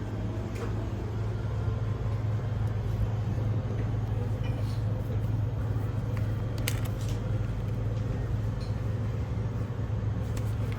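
Steady low rumble of a moving vehicle, with a few faint clicks over it.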